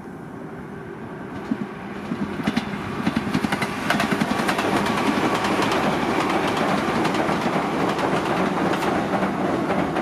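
LEGO train running past on plastic LEGO track: a motor hum with rapid clicking of the wheels over the track joints. It grows louder from about a second and a half in and is loud and steady from about four seconds in.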